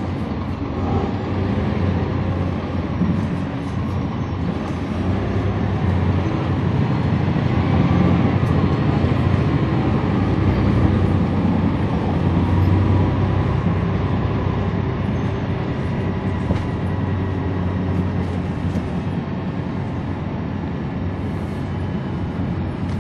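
Cummins ISL9 diesel engine of a 2011 NABI 40-SFW transit bus, heard from on board while the bus is under way: a steady deep engine drone with road noise. It grows louder for several seconds partway through, then settles back.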